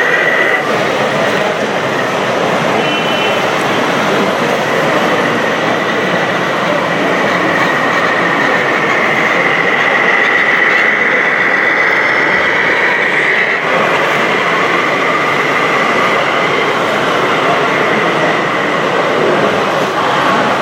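A small electric model drive, motor and gears, whining steadily over the general noise of an exhibition hall. The whine grows stronger about halfway through, then eases.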